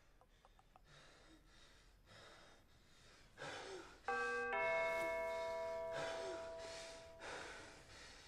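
A man's heavy, ragged breathing, then a two-note ding-dong doorbell chime about four seconds in that rings out for a couple of seconds.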